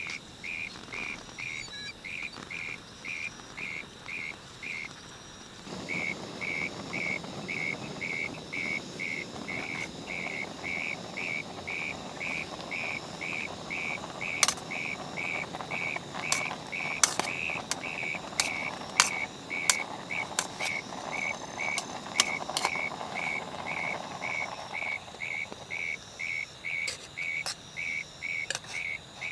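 An insect calls in steady, even pulses, about two or three a second, throughout. From about six seconds in until near the end a rushing noise rises under it, with scattered sharp clicks in the middle.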